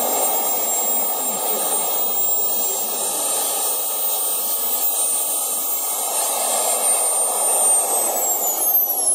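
Twin model turbine jet engines of a 1/16-scale RC Airbus A330-200 running as the model taxis: a steady high whine over a rushing exhaust. Near the end the whine falls in pitch as the turbines spool down.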